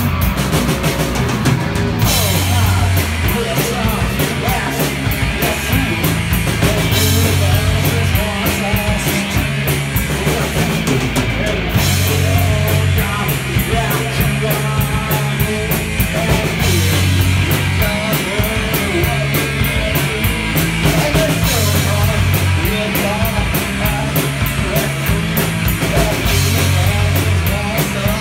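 Live punk rock band playing loud: electric guitar, electric bass and drum kit together, the bass moving in repeating note patterns under a fast, steady cymbal beat.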